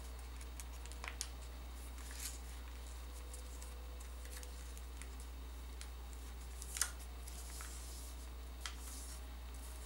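Paper rustling and creasing as hands fold a paper airplane's wing down and press the fold flat, with soft scattered crinkles and one sharper crackle about seven seconds in, over a steady low hum.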